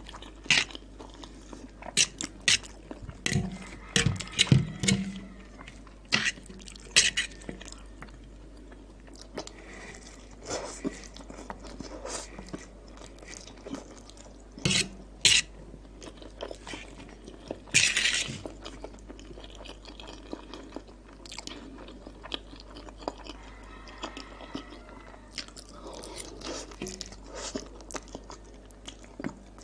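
A person chewing and crunching Cheetos mixed with instant noodles close to the microphone, in irregular crisp crunches with quieter chewing between them; the loudest crunches bunch together a few seconds in and again past the middle.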